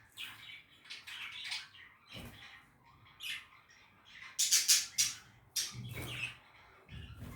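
Budgerigars chattering in short chirps and warbles, with a burst of louder, harsher squawks about halfway through.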